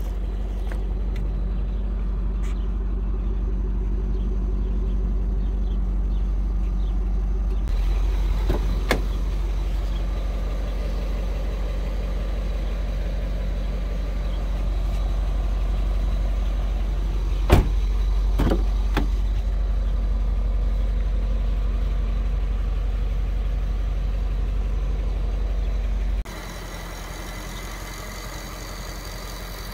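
BMW E39 M5's 4.9-litre V8 idling steadily after a cold start, with a deep even drone. A few sharp knocks come in the middle, and the engine sound turns quieter near the end.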